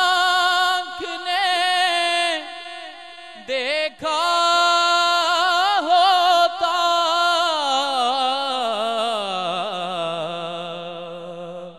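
A man sings a naat unaccompanied, drawing out long ornamented notes with a quavering vibrato. A short break falls about four seconds in, then a long phrase slowly sinks in pitch and fades near the end.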